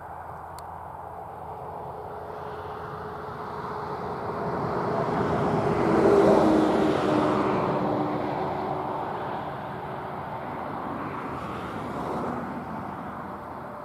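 John Deere 7920 tractor's six-cylinder diesel engine running steadily as it pulls a trailed field sprayer past, growing louder to a peak about six seconds in and then fading away.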